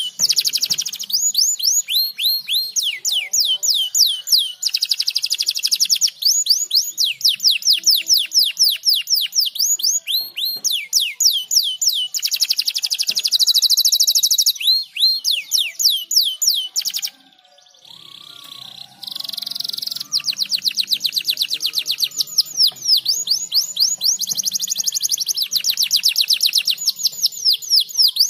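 Domestic canary singing: long runs of fast, evenly repeated sweeping notes alternating with rapid buzzing trills, with a short break a little past the middle.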